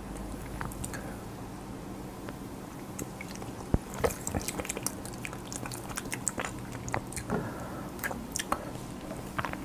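Faint wet mouth clicks and lip smacks from tasting a cola drink, scattered and growing busier in the second half, with a single sharp knock about four seconds in.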